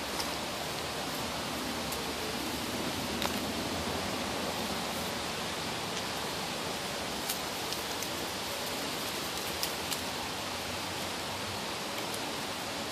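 Steady outdoor background hiss with no clear source, and a few faint clicks.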